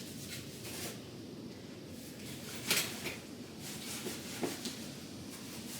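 Soil blocker being pushed into dry compost and worked, giving a few soft clicks and knocks, the loudest a little under three seconds in, over a faint steady hiss.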